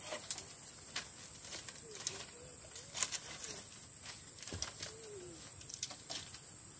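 Dry bamboo poles knocking and clattering as they are pulled down and handled, a dozen or so scattered knocks, the loudest about three seconds in. A dove coos faintly twice in the background.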